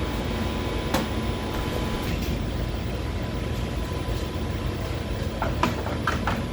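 Steady low mechanical hum of running lab equipment with a faint steady tone, with a few light clicks and taps about a second in and again near the end.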